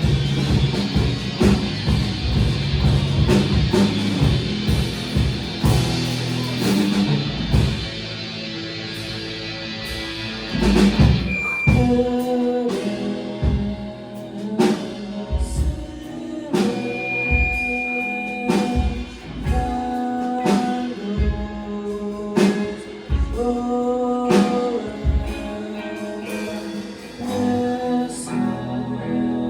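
A rock band playing live on drums and guitars. The first ten seconds or so are a dense wall of distorted guitar, then it drops to a sparser part of clean guitar notes over separate drum hits.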